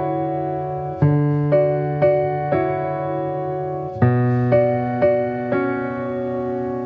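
Background music: a gentle electric piano playing slow, evenly paced chords, the chord changing about a second in and again around four seconds in.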